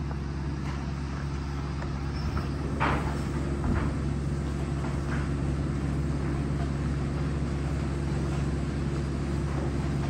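Belt-driven overhead line shaft and pulley system of a historic railroad car shop running steadily, a low drone with a few light knocks over it.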